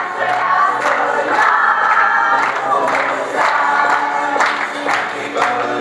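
Loud music with many voices singing, and a group of people clapping along in time, about two claps a second.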